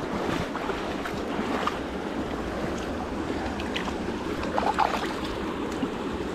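Shallow stream water running steadily, with a few small splashes and clicks as a hand works in a landing net held in the water.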